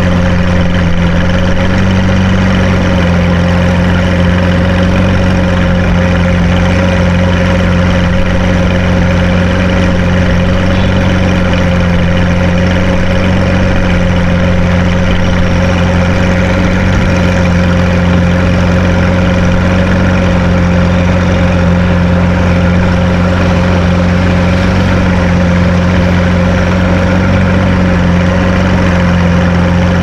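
Car engine idling steadily and loud, close by, with no revving.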